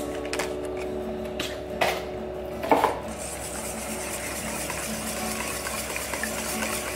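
Cottage cheese going from its tub into a stainless steel bowl of beaten eggs, with two knocks, then a wire whisk beating the mixture and scraping against the metal bowl from about three seconds in.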